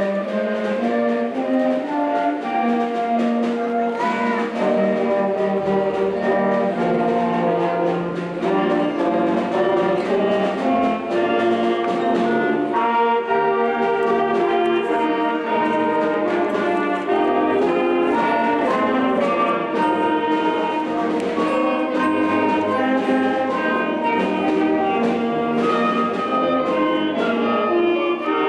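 Instrumental music led by brass, with trumpets, trombones and horns playing a piece of held and changing notes.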